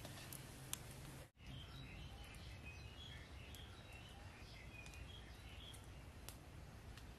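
Faint outdoor ambience with small birds calling in many short, high chirps, and scattered sharp crackles from a small wood campfire. The sound cuts out completely for an instant just over a second in.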